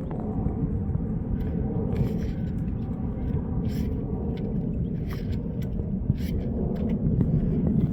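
Volvo T5 turbocharged five-cylinder engine running with a steady rumble and repeated sharp knocks: piston slap.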